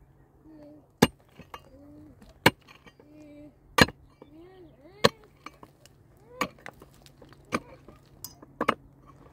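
A hard object striking something, seven sharp strikes at a steady pace of about one every second and a quarter.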